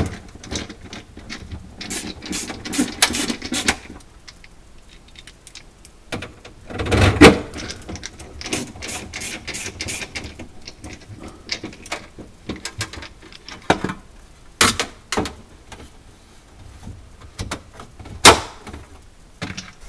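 Hands working on the plastic panels and wire clips inside a refrigerator compartment: irregular clicks, taps and handling noises, with a heavier bump about seven seconds in and sharp clicks later on.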